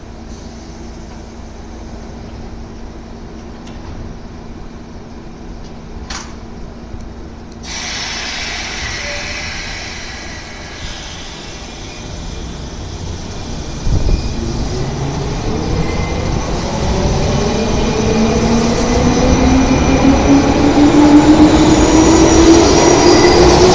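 JR 201 series electric commuter train standing at the platform with a steady hum, then pulling away: the whine of its chopper-controlled traction motors rises steadily in pitch as it accelerates past, growing louder toward the end.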